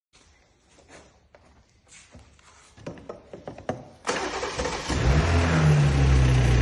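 Faint clicks and knocks, then about four seconds in a car engine starts, its pitch rising briefly before it settles into a steady idle after an oil change.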